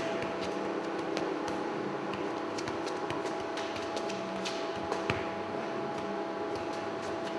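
Steady hum with scattered light taps and clicks, and one sharper thud about five seconds in as a football is tossed and controlled on the foot.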